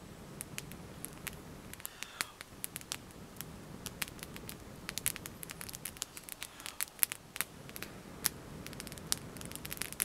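Small fire of damp sticks and tinder crackling and popping as it catches, the pops coming more often after the first few seconds, over long, steady breaths blown into it.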